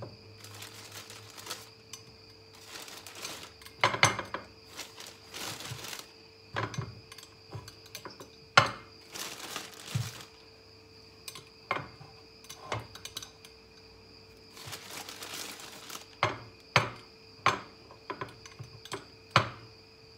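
Raw potatoes being set down one at a time into a ceramic baking dish, knocking against it and against each other, with a plastic potato bag crinkling and rustling between the knocks.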